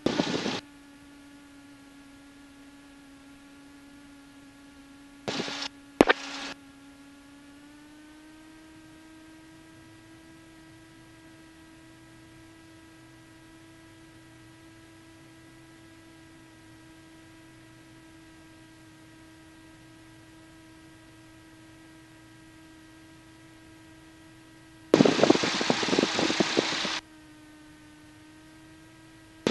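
Cessna 172's engine at taxi power, heard through the headset intercom as a steady hum with an even tone that steps up slightly in pitch about eight seconds in. Short loud bursts of radio static break in near the start, twice around six seconds, and for about two seconds near the end.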